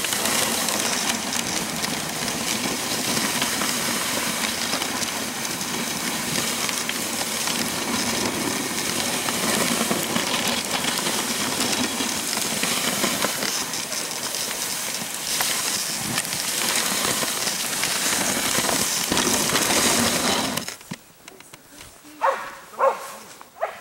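Steady rushing hiss of a dog sled moving at speed over a snowy trail, its runners sliding on the snow. It cuts off suddenly about 21 seconds in as the sled stops, followed by a few brief sharp sounds.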